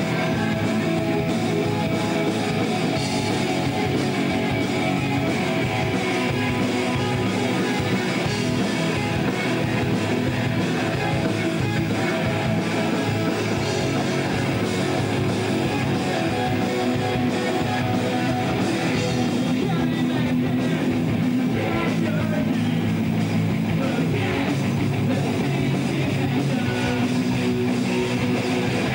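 A rock band playing live, led by distorted electric guitar, with some singing.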